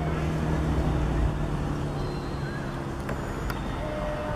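A motor engine humming steadily in the background, fading out about a second in and leaving an even rumbling outdoor noise, with a couple of faint short chirps and clicks.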